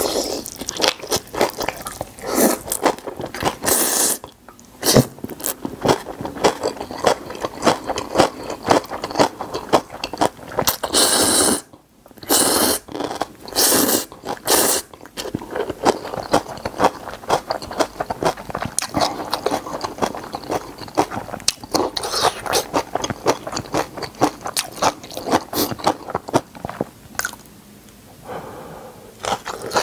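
Close-up slurping and chewing of spicy instant ramen noodles: wet, clicky chewing throughout, broken by several long, loud slurps in the first half.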